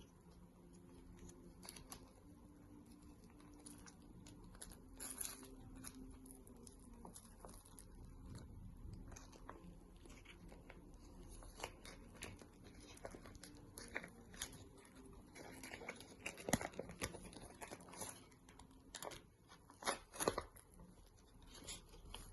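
Bamboo leaves of a zongzi rustling and tearing as it is unwrapped by hand: scattered soft crinkles and cracks, coming faster and louder in the second half.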